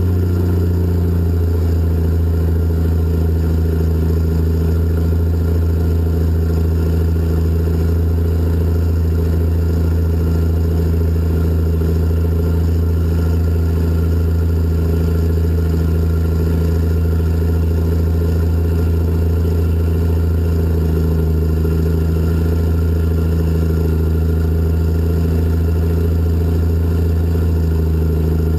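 Diesel engines of a Cat 627 twin-engine scraper running steadily, heard from inside the cab as a loud, deep, even drone. The pitch shifts slightly about a second in and again around twenty-one seconds.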